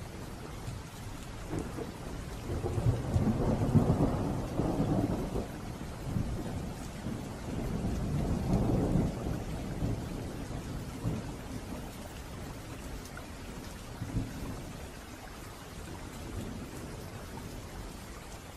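Steady rain with rolling thunder, the rumble swelling about three seconds in and again around eight seconds before fading back to the rain.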